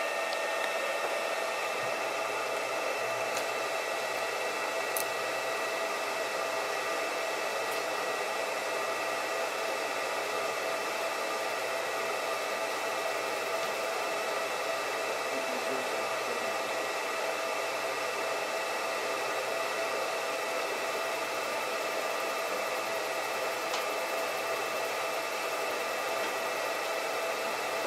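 Steady fan-like whir and hiss with several constant whining tones from a handheld fiber laser marking system running while it engraves an image into a black-coated plate, with a few faint ticks.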